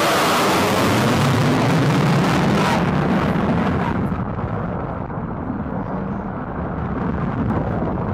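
Military jet flying over the air show: loud engine noise, whose high hiss dies away about four seconds in, leaving a lower rumble.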